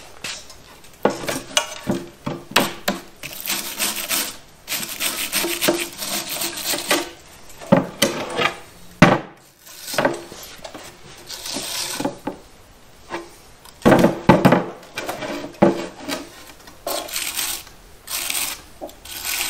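Dirt being scraped off a steel suspension lower control arm around its ball joint, with sharp hammer taps on the arm, several of them close together near the end.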